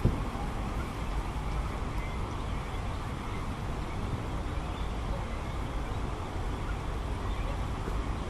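Steady outdoor background rumble, heaviest in the low end, with a single sharp click right at the start.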